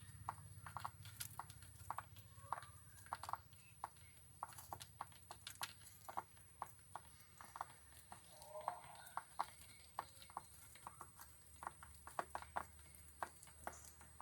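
Faint, irregular sharp clicks and taps, several a second, with a few short soft calls: lovebirds moving and pecking in their cage.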